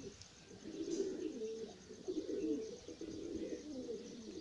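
Kamagar pigeons cooing: a run of low coos, one after another.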